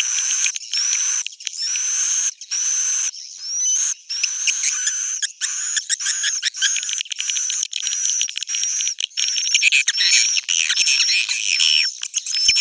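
Swiftlet roosting-call lure recording (suara inap), the sound played in swiftlet houses to draw the birds in to roost and nest. It is a dense, high twittering of chirps and short whistled notes. For the first few seconds it comes in clipped bursts with brief gaps between them, then it runs on continuously.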